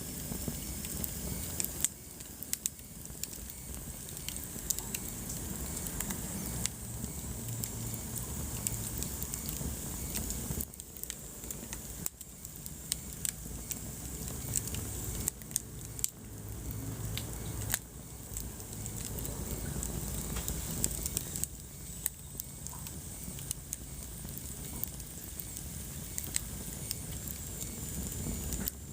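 Wood fire burning in a fireplace, crackling with frequent irregular sharp pops and snaps over a steady low rumble of the flames.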